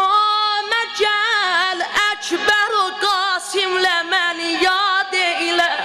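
A boy's solo voice singing a noha, a Shia mourning elegy for Hussein, in Azerbaijani. He holds high notes with a wavering, trilled ornament and leaves short pauses between phrases.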